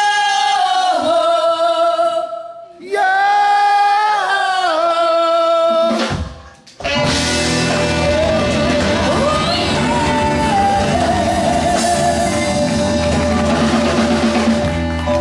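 Live band: a woman's voice holds two long notes almost alone, then after a brief break about seven seconds in, the full band with drums, bass, guitar and saxophone comes back in.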